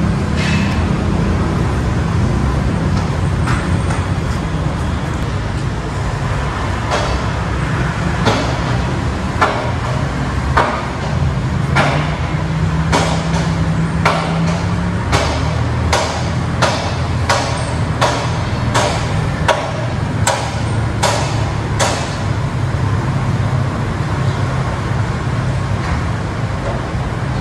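Steady low rumble of vehicles, with a run of sharp knocks starting about a quarter of the way in, getting faster to about two a second and stopping well before the end.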